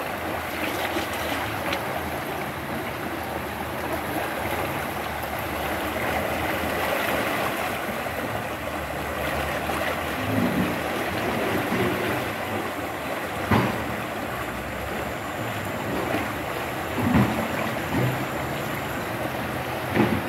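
Swift, shallow river current rushing steadily. A few short thumps break in during the second half.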